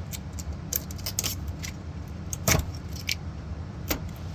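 Scattered sharp metallic clicks and clinks from handling tools and parts while taking apart a gas furnace's blower, the loudest about two and a half seconds in and again near four seconds, over a steady low hum.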